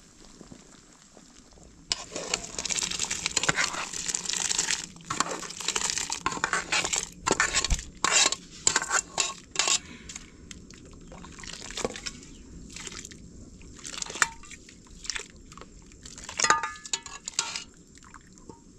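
Water splashing in irregular bursts, with a few sharp clinks of dishes or pots near the end.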